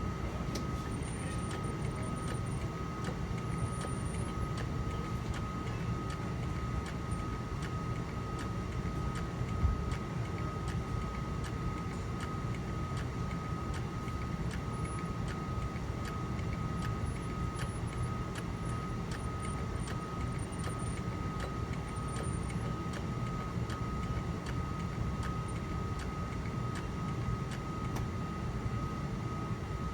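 Steady hum of running industrial machinery, with a low rumble and a constant high-pitched whine, faint ticking throughout and a single knock about ten seconds in.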